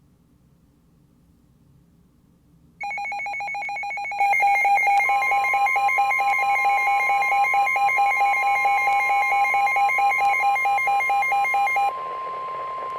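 Weather alert radio sounding a severe thunderstorm warning. A fast-pulsing electronic alarm beep starts about three seconds in and gets louder a second later. About two seconds after that, the steady single-pitch NOAA Weather Radio warning alarm tone joins it. The pulsing stops near the end while the steady tone carries on.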